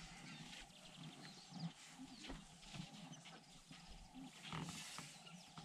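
Faint, low rumbling of African savanna elephants, with light scattered clicks and rustles.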